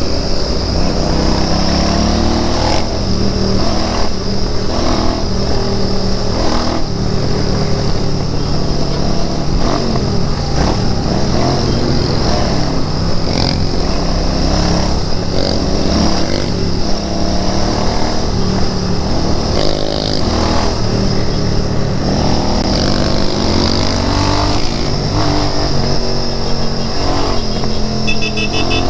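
Royal Enfield Interceptor 650 parallel-twin engine and exhaust under way, its revs rising and falling as the bike accelerates and eases off.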